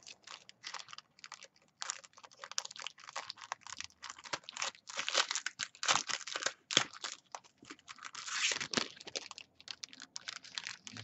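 Clear plastic cellophane sleeve around a pack of paper crinkling and crackling as hands handle it, in irregular bursts with short gaps.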